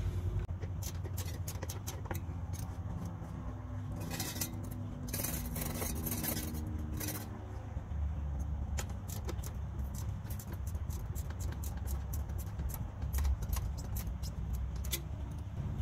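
Scattered small metallic clicks and scrapes from hand tools working the height adjustment on a cylinder mower's groomer and front roller, with a stretch of rougher scraping about four to seven seconds in.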